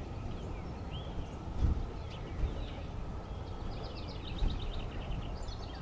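Small birds chirping, with rapid high trills in the second half, over a low steady outdoor rumble.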